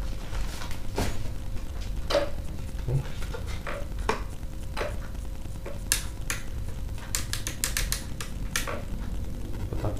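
Light plastic clicks and taps as a new DJI Phantom 3 Standard drone and its packaging are handled, with a quick run of clicks about seven seconds in, over a steady low hum.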